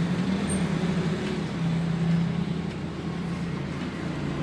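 A motor vehicle engine running steadily: a low, even drone.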